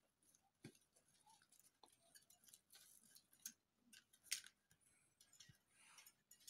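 Near silence with faint scattered clicks and short rustles, the loudest a little over four seconds in.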